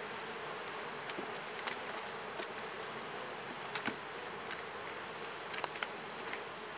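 Honeybees buzzing steadily from an open hive, a full colony on the frames, with a few short clicks scattered through.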